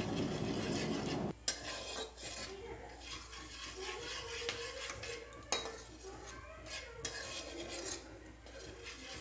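A spatula stirring and scraping around a kadai, with a couple of sharp clinks against the pan, over a faint sizzle of whole spices frying in butter and oil.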